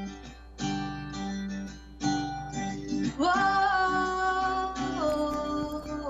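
Acoustic guitar strummed and plucked, with a woman's voice coming in about halfway through on one long held note that steps down in pitch near the end.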